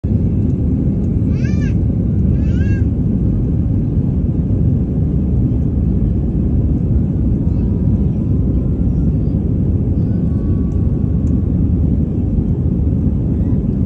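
Steady low rumble of an airliner's engines and airflow heard from inside the passenger cabin. Two brief high-pitched vocal sounds come about one and a half and two and a half seconds in.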